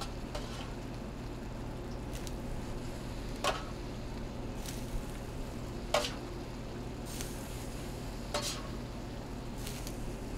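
Metal tongs clinking against stainless steel pans about every second or two as shredded braised pork is transferred into a pot of simmering barbecue sauce, over a steady low hiss and hum.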